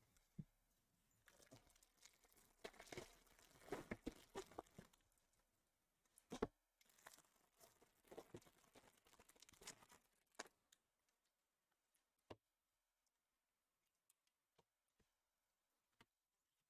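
Faint tearing and crinkling of a baseball card pack's foil wrapper being ripped open, in patches over about ten seconds. After that come a few soft, separate clicks as the stack of cards is handled.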